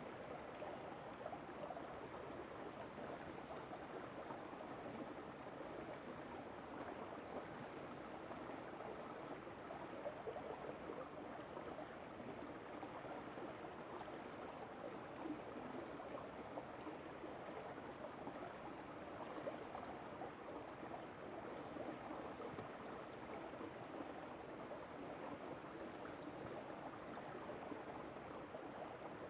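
River water flowing over stones, a steady rushing and gurgling with no pauses.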